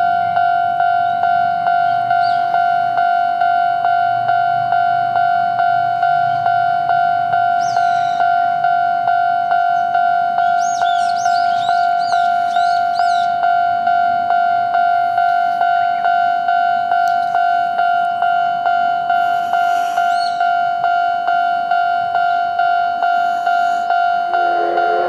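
Japanese railway level-crossing warning bell ringing, one steady electronic tone that repeats evenly about one and a half times a second, signalling that a train is approaching. Near the end a lower pitched sound comes in under it.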